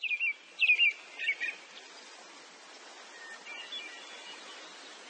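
Birds chirping: a few loud, quick chirps in the first second and a half, then fainter twittering over a steady outdoor hiss.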